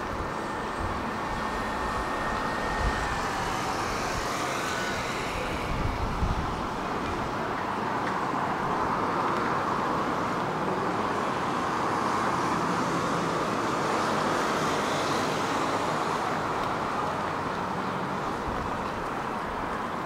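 City street traffic: the steady noise of road vehicles passing, swelling in the middle as one goes by.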